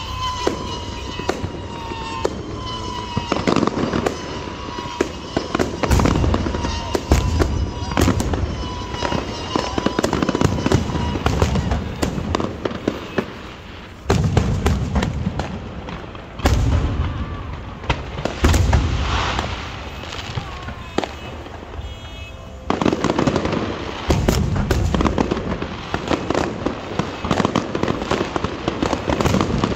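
Aerial fireworks display: repeated deep booms of shells bursting every few seconds, with dense crackling and sharp bangs between them. A thin whistling tone falls slowly through the first several seconds.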